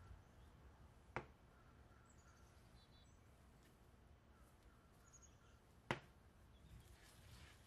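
Near silence with two sharp clicks, one about a second in and a louder one near six seconds, and a few faint high chirps.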